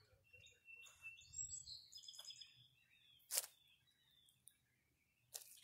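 Small birds chirping and singing faintly in short whistled notes and trills for the first three seconds or so. Two sharp clicks about two seconds apart; the first is the loudest sound.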